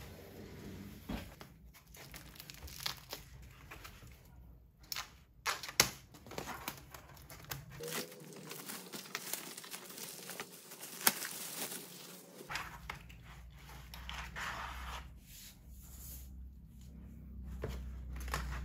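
Clear plastic wrap crinkling and tearing and cardboard packaging rustling as a flat-packed pegboard is unwrapped, with scattered small knocks and clicks.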